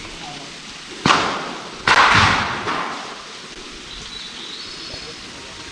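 A stone thrown down into a deep sinkhole, knocking against rock twice about a second apart, the second knock louder and trailing off in a short clatter as it falls on; dropped to judge the pit's depth by ear.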